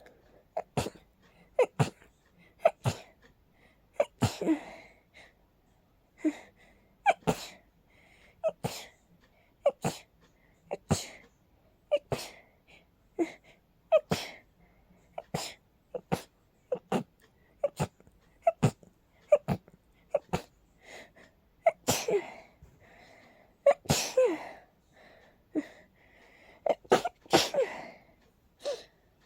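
A person sneezing in a rapid fit, one short, sharp sneeze after another, about one a second and sometimes two in quick succession, with brief breaths between. The loudest sneezes come in the last third. The fit is set off by allergies.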